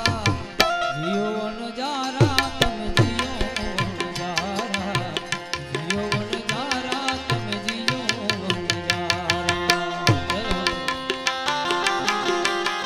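Instrumental interlude of a Gujarati bhajan. The tabla plays fast, steady strokes, and the bass drum's pitch slides up and down under held harmonium notes.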